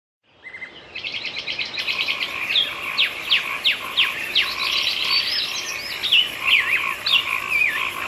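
Several birds chirping and calling, fading in from silence. A dense chatter runs under a quick series of sharply falling whistles, about three a second, from roughly two and a half to four and a half seconds in, then gives way to wavering, warbled notes.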